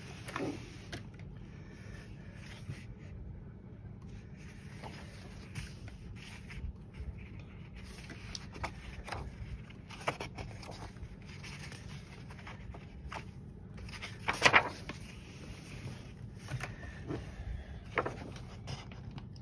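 Pages of a paperback colour-by-number colouring book being turned and handled: scattered paper swishes and scrapes, the loudest about two-thirds of the way through, over a faint steady hum.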